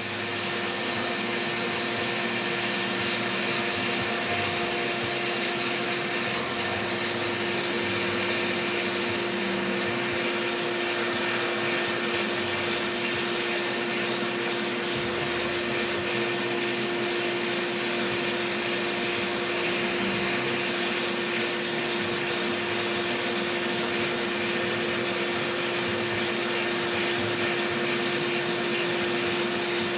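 CNC milling machine running a cut with coolant on: a steady whir and hiss carrying one constant hum-like tone, with no change in speed or load.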